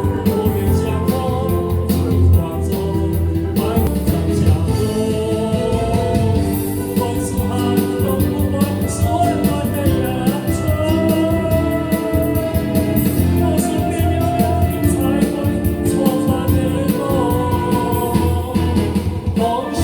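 A song performed over backing music, a melody carried in long held notes above a steady accompaniment.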